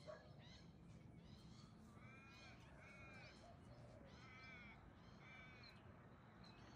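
Australian magpies calling softly: a faint series of short, arching notes, about seven of them, spaced roughly half a second to a second apart.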